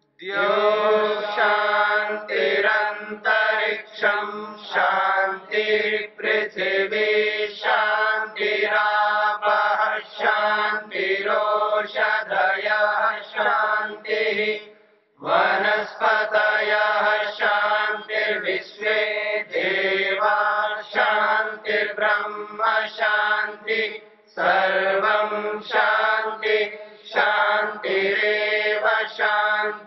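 Sanskrit mantra chanting over a steady low drone, in sung phrases with short breaks and one full pause about halfway through.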